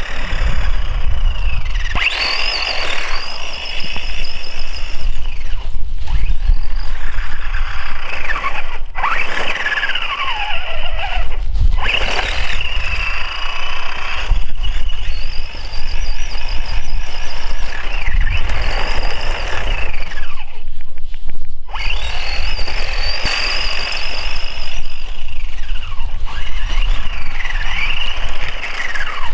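Kyosho Lazer Alpha electric RC buggy's motor and gear drivetrain whining, the pitch rising and falling with the throttle and cutting out briefly several times, over a low rumble. It is very noisy: the owner traces the worsening noise off-road to a loose pin and a gearbox pulling apart.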